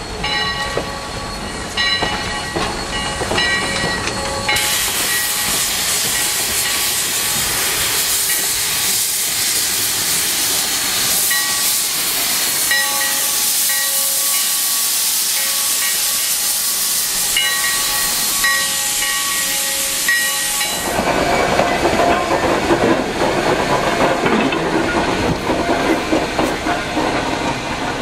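Sierra Railway No. 3, a 4-6-0 steam locomotive, passing close with a loud steam hiss from about 4 s to 21 s, after faint wheel squeal from the passing coaches. From about 21 s a lower, fluttering rumble takes over.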